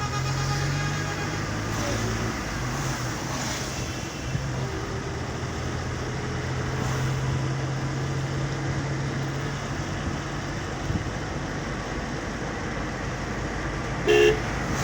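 A motor vehicle's steady engine drone and road noise, with a brief, louder pitched beep near the end.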